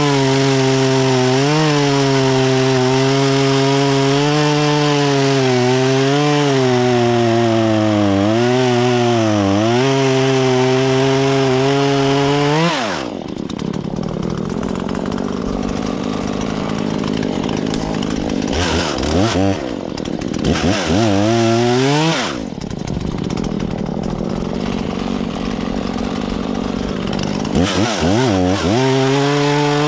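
Husqvarna 120 Mark III two-stroke chainsaw cutting wood at full throttle, its pitch dipping and recovering as the chain loads up in the cut. About thirteen seconds in it drops to idle and is revved briefly twice. Near the end it goes back up to full throttle.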